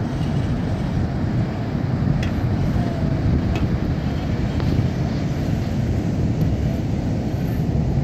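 Ocean surf breaking on the beach in a steady low rumble, mixed with wind on the microphone.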